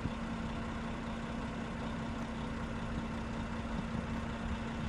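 An engine running steadily: a constant low hum over an even rushing noise.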